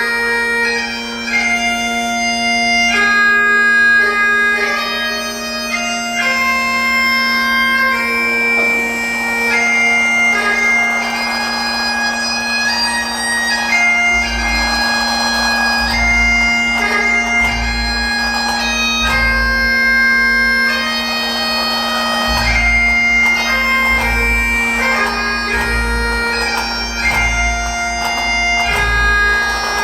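Bagpipes played solo: a slow lament, the chanter's melody moving note to note over one steady drone. From about halfway there are also irregular low thumps beneath the pipes.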